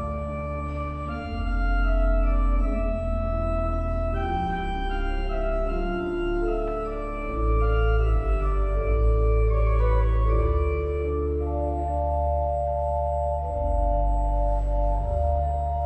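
Pipe organ playing slow, sustained chords over deep held bass notes, the chords changing every second or two.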